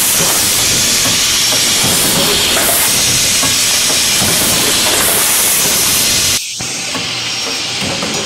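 Rotary pouch packing machine running as it fills and seals kimchi bags: a steady, loud mechanical clatter with continuous air hiss from its pneumatic cylinders. The sound drops abruptly in level about six seconds in and carries on more quietly.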